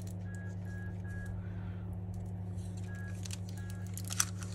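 Short electronic beeps over a steady low electrical hum: three quick beeps near the start and two more about three seconds in, with a few light clicks near the end.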